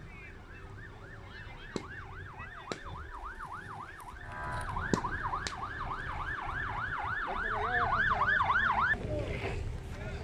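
Emergency vehicle siren on a fast yelp, about three to four sweeps a second, growing louder and cutting off about nine seconds in. Several sharp cracks of ammunition cooking off in the fire stand out against it; the loudest comes about five seconds in.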